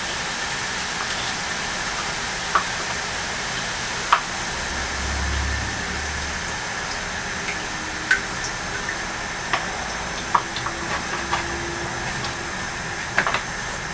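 Steady hiss and sizzle of a red-wine bordelaise sauce reducing in a pan on a gas hob as beef stock is poured in, with scattered sharp clinks of utensils and containers.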